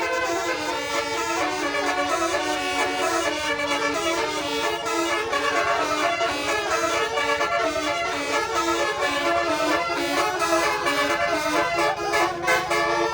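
Telolet bus horn, a set of multi-tone air horns, playing a melody: several horn tones sounding together and changing pitch in steps like a tune, with a rising and falling glide near the end.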